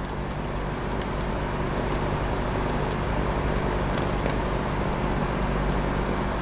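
Small jeweler's torch flame held on a silver-solder joint, a steady rushing noise with a low hum underneath, as just enough heat is kept on to barely melt the solder and build up the joint.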